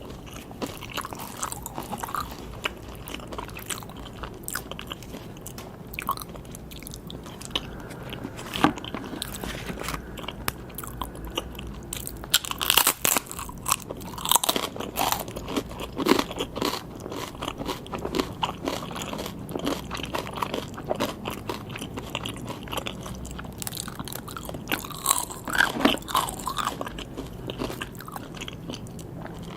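A person chewing and crunching sushi, with irregular crisp bites and mouth sounds. The crunching comes in louder clusters around the middle and again near the end.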